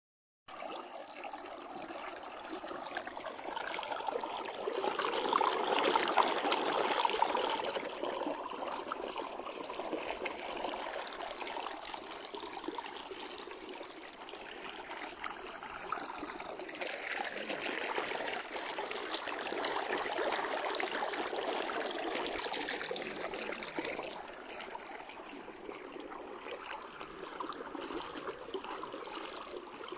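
Shallow stream running over stones, a steady babbling rush of water that swells louder around five to eight seconds in and again around twenty seconds in.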